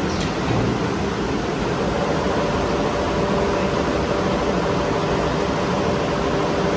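Steady machine hum and hiss of a CNC nesting router and its bag-filter dust extraction running, with a few steady tones coming in about two seconds in.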